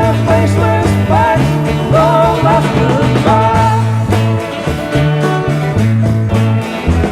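Psychedelic rock band playing an instrumental passage: a stepping bass line under a lead melody with bending, sliding notes.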